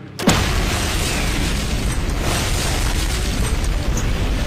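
A loud explosion goes off suddenly about a quarter second in, followed by a steady, dense rumble that carries on without fading.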